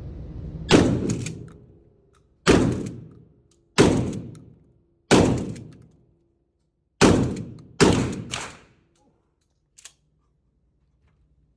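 A 12-gauge pump-action shotgun firing a string of about seven shots, roughly one to two seconds apart, each with a short ringing tail. A faint click comes near the end.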